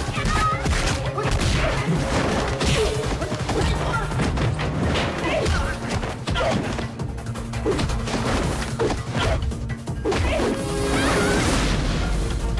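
Film fight soundtrack: music under a rapid run of punch, kick and crash impacts.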